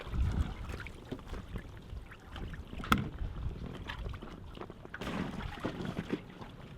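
Water lapping and sloshing around a small boat as someone moves about in it, with scattered clunks and knocks against the hull; one sharp knock about three seconds in.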